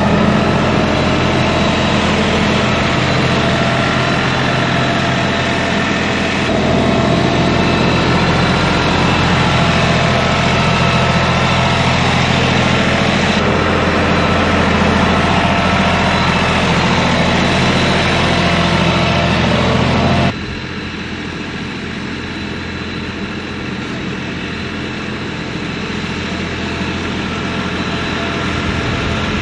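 Tractor engine running steadily. About two-thirds of the way through it drops suddenly quieter, then slowly grows louder again.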